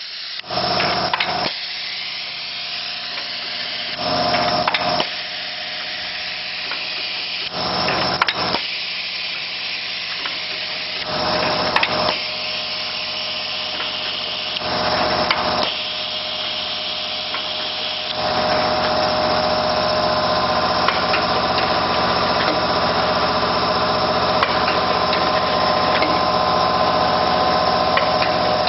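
Drip-cup coffee filling-sealing machine running, with a steady hum and bursts of hissing and clatter about every three to four seconds as it cycles. After about eighteen seconds the bursts merge into a steadier, continuous noise.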